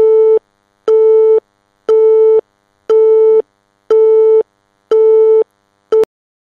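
Telephone busy tone: one steady beep pulsing on and off about once a second, six times, with a short seventh beep cut off near the end. It is the tone of a call that cannot get through.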